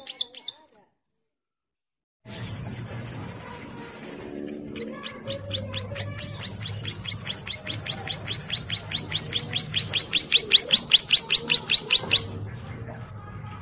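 Caged prinia (ciblek) calling with the rapid 'ngebren' call. After a short silent gap and a few scattered chirps, it gives a long run of sharp, high notes, about six a second, that grow louder for some seven seconds and then stop abruptly.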